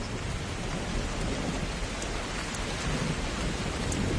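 Steady rain falling on marsh water, with a low rumble of thunder underneath, growing louder near the end.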